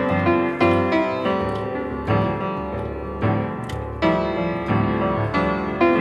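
Background music: piano melody with sustained notes.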